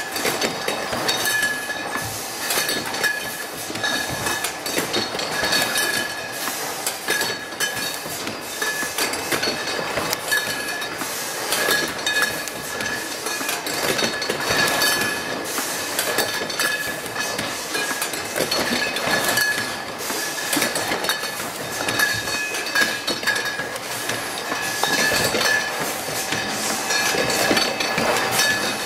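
Automatic wine-bottle labelling machine running on a bottling line: continuous mechanical clatter with glass bottles clinking, over a steady high whine.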